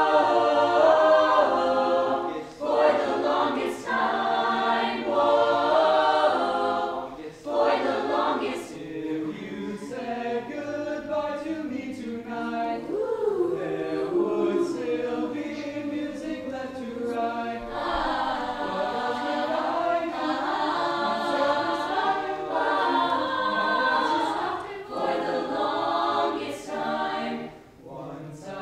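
Mixed-voice student choir singing unaccompanied in harmony, in long held phrases with brief breaks between them.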